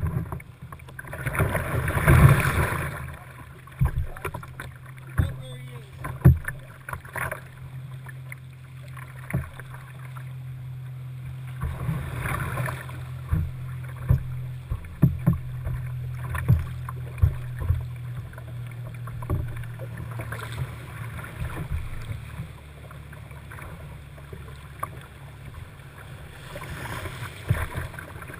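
Whitewater kayak paddling heard from a camera on the boat: paddle blades splashing into the river and water rushing against the hull, with many short knocks. The louder splashing swells come about two seconds in, around twelve seconds, and near the end.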